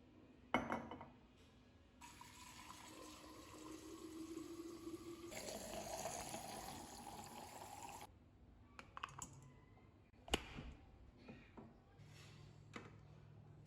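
Water running faintly into a container for about six seconds, followed by a few light clicks and knocks.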